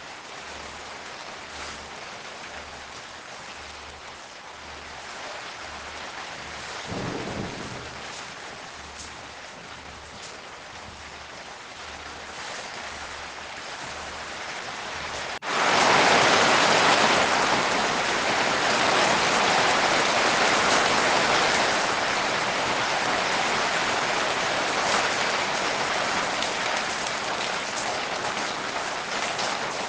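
Rain falling steadily, turning abruptly into a much heavier downpour about halfway. In the lighter first half a faint low pulse repeats about once a second.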